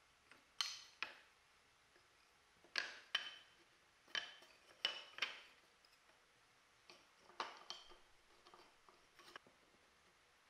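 Loose wooden slats being set down on a wooden frame and knocking against one another: a series of sharp wooden clacks, several coming in quick pairs, with quiet gaps between.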